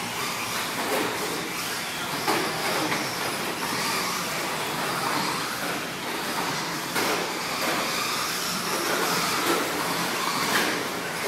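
Several radio-controlled 2wd short-course trucks racing on a dirt track: a steady mix of motors whining and rising and falling as the trucks speed up and slow down, and running gear rattling over the dirt. A few sharper knocks from the trucks hitting bumps or the track borders.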